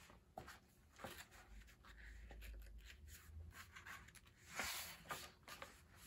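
Faint rustling and handling of a picture book as its page is turned, with a few soft clicks and a louder paper rustle just before five seconds in.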